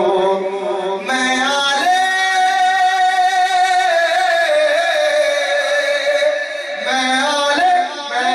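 Man singing an Urdu devotional manqabat into a microphone: short phrases, then one long high note held with a slight waver for about five seconds, then short phrases again.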